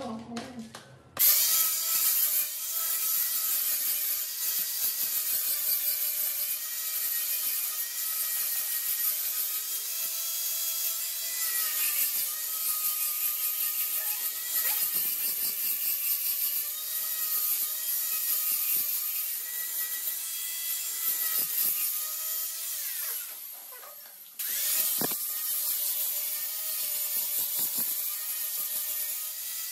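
Handheld electric angle grinder grinding the edge of a granite countertop: a steady motor whine over a harsh grinding hiss. It starts about a second in, winds down briefly near the end, and starts up again.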